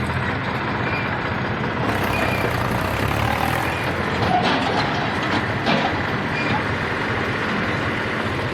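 Heavy diesel machinery running steadily, with a couple of sharp knocks about halfway through.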